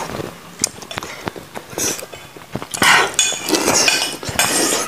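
Close-miked eating sounds of a person chewing a piece of corn on the cob soaked in curry sauce: wet chewing and sucking with many sharp mouth clicks and smacks. The slurping gets louder and busier from about halfway through.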